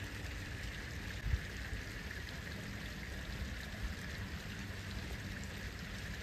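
Steady splashing and trickling of water from a garden fountain, over a low rumble, with a brief low thump about a second in.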